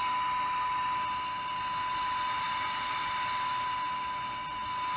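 Saturn 40 CB transceiver's loudspeaker putting out a steady, unbroken whistle-like tone over static hiss. This is the received signal that the receiver is being tuned by ear to.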